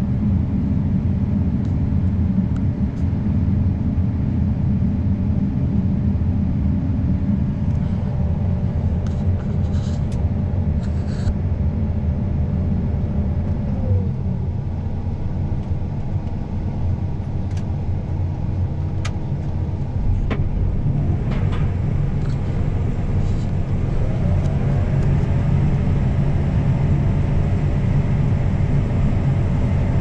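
John Deere S780 combine (473 hp) heard from inside its cab while harvesting corn: a steady, loud low drone of the engine and threshing machinery. Fainter whining tones glide down about halfway through and up again near the end, with a few scattered ticks.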